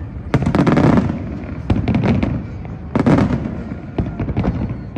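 Fireworks display: aerial shells bursting in rapid succession, a string of booms and cracks, with the loudest clusters about half a second in and again about three seconds in.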